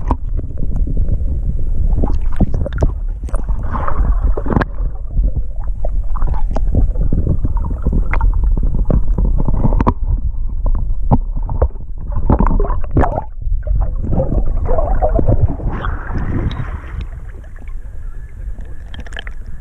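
Choppy water sloshing and gurgling at the surface, heard from a camera dipping in and out of the water. There is a steady low rumble with many small splashes and knocks.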